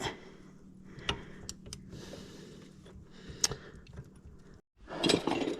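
Scattered light metallic clicks and clinks of small drivetrain parts being handled, over a faint steady hum. The sound drops out briefly near the end, then comes back as a louder burst of clattering and handling noise.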